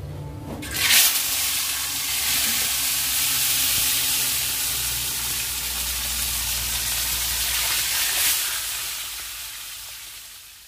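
Whole tilapia going into hot cooking oil in a wok, with a loud burst of sizzling and then steady frying. A second fish goes in about eight seconds in with another burst, and the sizzle then dies down.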